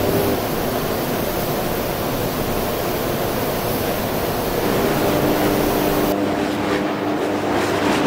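Electric arc furnace running: a loud, rough, steady noise with an electrical hum underneath, the hum showing more clearly from about six seconds in.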